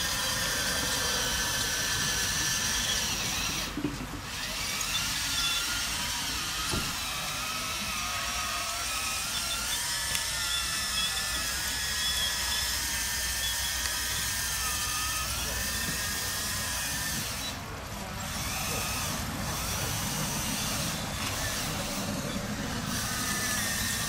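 Small electric motor of a radio-controlled model Komatsu PC 490 excavator whining as the arm and bucket dig soil, its pitch wavering up and down with the movements and briefly dropping away twice.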